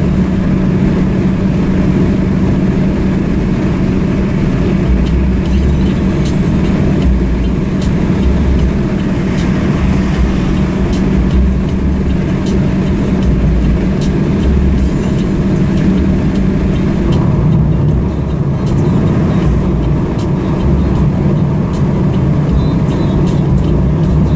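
A car being driven along a road: steady engine and road noise with a constant low hum.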